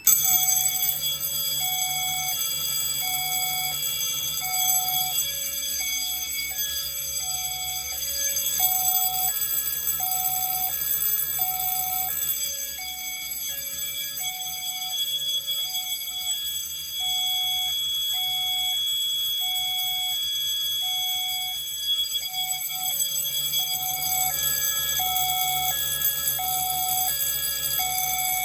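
A fire alarm system in drill: a bell, a Wheelock E70 speaker strobe and a duct detector sounder going off together. A continuous ringing and a steady high tone sit under a two-tone signal that pulses on and off about once a second. It all starts abruptly.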